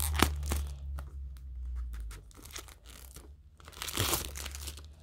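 Clear plastic shrink-wrap being torn and peeled off a small cardboard box, crinkling in irregular bursts, with a louder burst of crinkling about four seconds in.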